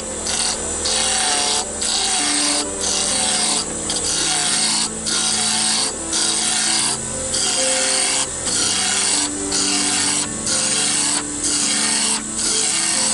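A hand-held turning tool cutting a spinning wood blank on a King KWL-813VS variable-speed wood lathe, throwing shavings. It makes a steady hissing cut, broken by short gaps about once a second.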